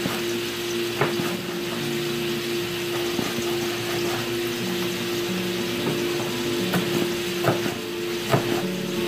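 Pieces of pork sizzling as they brown in a frying pan, a steady hiss, with several sharp, irregularly spaced knocks of a knife on a plastic cutting board as tomatoes are diced. A steady hum runs underneath.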